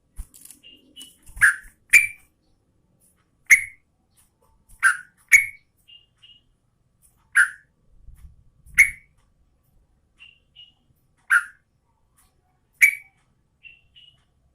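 Yellow-vented bulbul (trucukan) giving short, sharp calls, about ten of them spaced a second or so apart and several in quick pairs, with softer double notes in between.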